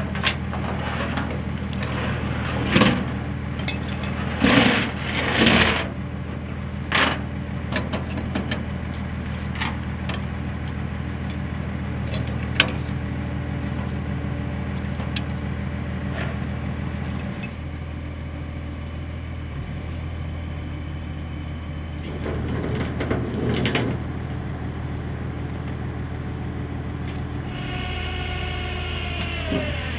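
A tow truck's engine running steadily, with sharp metal clanks and clicks as steel rigging hardware is fitted to the rollback's deck rail, most of them in the first half. Music comes in near the end.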